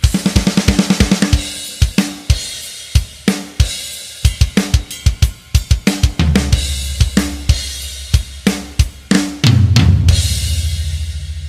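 Isolated metal drum-kit track: a fast snare roll, then kick, snare and tom hits with cymbals. From about six seconds a low sustained tone sits underneath, and about nine and a half seconds in a final crash hit rings out and slowly fades.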